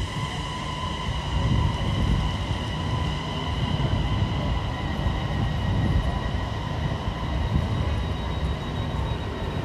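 Parked electric passenger train at a platform: a steady whine in several high tones over a low, uneven rumble.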